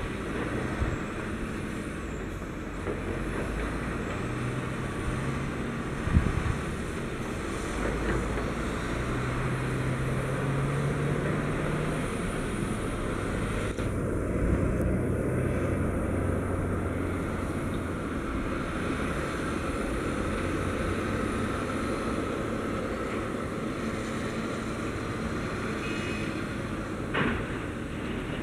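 Heavy diesel engines running steadily: first a Tatra 815 dump truck's engine, whose pitch rises for a few seconds before the middle, then a wheel loader's engine after a change about halfway. A couple of brief knocks come about six seconds in and near the end.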